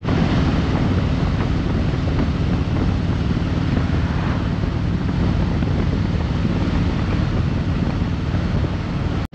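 Wind rushing and buffeting on the microphone over the low drone of a Harley-Davidson Road Glide Limited's V-twin and road noise, cruising steadily at highway speed.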